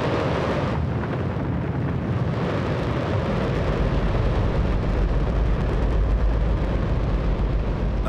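Rocket engine firing on a test stand in a static test: a loud, steady rushing noise with a deep rumble that grows stronger about halfway through.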